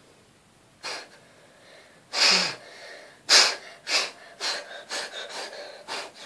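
A person huffing short, sharp breaths out through the nose with the lips pressed shut: one louder huff with a brief grunt about two seconds in, then a run of quicker puffs about two a second.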